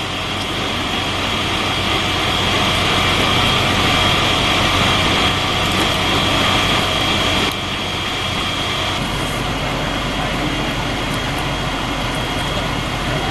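A steady engine running, with a constant high whine over it. The sound drops slightly and changes abruptly about seven and a half seconds in.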